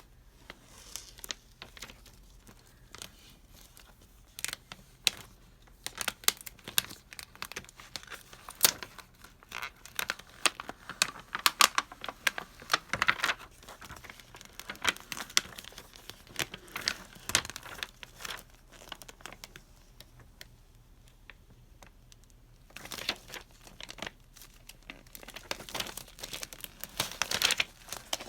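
Iron-on transfer vinyl being handled and peeled from its sheet: irregular crinkling and tearing crackles in bursts, with a lull about two-thirds of the way through.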